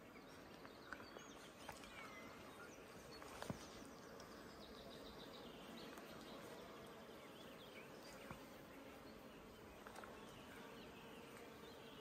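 Faint outdoor ambience of small birds chirping and trilling, with a few sharp ticks, the loudest about three and a half seconds in.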